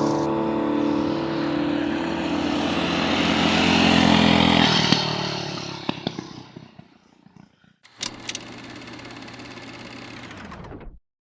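An engine running at a steady speed, then dying away about five to seven seconds in. Near the end a quieter low steady hum starts with a couple of clicks and cuts off suddenly.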